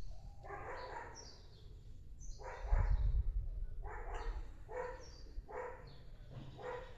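An animal calling five or six times in a row, each call about half a second long, with birds chirping in the background.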